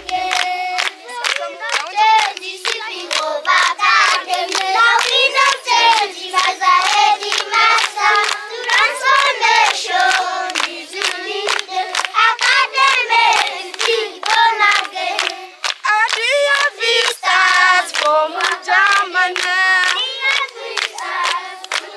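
A group of children singing a song together while clapping their hands in a steady rhythm.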